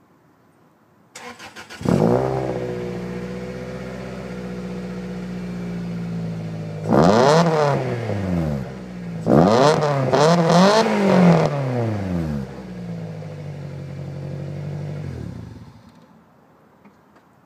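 Toyota Celica engine cranked on the starter, catching within a second and idling steadily through an aftermarket axle-back muffler. It is revved once, then blipped several times in quick succession, each rev rising and falling cleanly, and settles back to idle before being switched off near the end. The engine runs with its misfire and bog cured.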